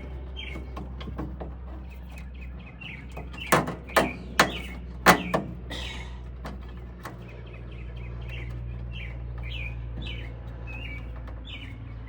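Small birds chirping over and over in the background, with four sharp clicks or knocks in quick succession a few seconds in, the loudest sounds here, over a steady low hum.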